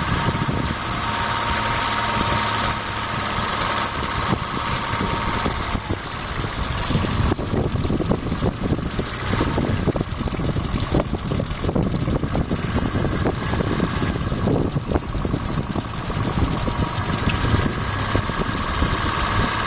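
Boat motor running at idle, steady and unbroken. Its tone shifts about seven seconds in.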